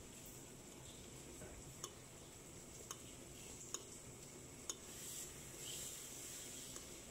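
Chicken braising in soy-sauce liquid in a pan, the sauce bubbling with a faint steady sizzling hiss. Four sharp pops come through the first five seconds, and the hiss swells a little after that.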